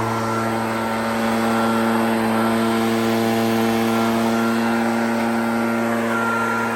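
Echo PB-9010 backpack leaf blower's two-stroke engine running at steady high throttle, blowing snow, its pitch holding even throughout.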